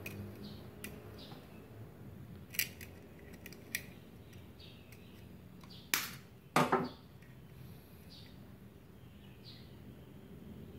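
Light clicks and knocks from handling a small plastic spool of copper-coated MIG welding wire at the welder, a few scattered small ones and two louder knocks a little past halfway.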